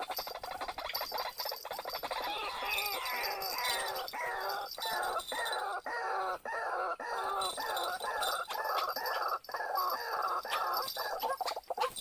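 White-breasted waterhen calling: a harsh call repeated over and over, about two to three times a second, from about two seconds in until just before the end.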